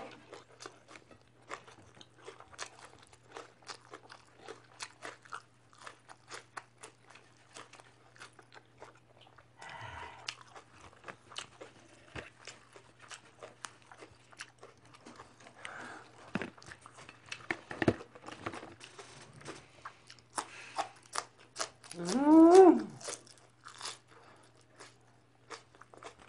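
Close-miked eating: a steady run of crisp crunches and wet chewing as raw leafy vegetables and herbs are bitten and chewed. Near the end a short wordless hum from the eater rises and falls in pitch, the loudest sound.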